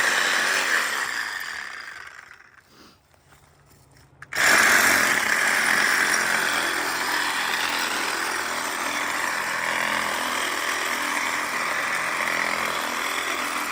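Cordless DeWalt reciprocating saw with a Diablo pruning blade cutting a tree branch. The saw dies away and falls quiet about two seconds in, then starts again suddenly a little past four seconds and runs steadily.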